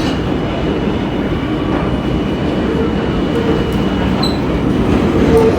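An R32 subway train running, heard from inside the car: a steady low rumble of wheels and motors. A faint thin high whine lasts through the first four seconds, and a short higher tone comes about four seconds in.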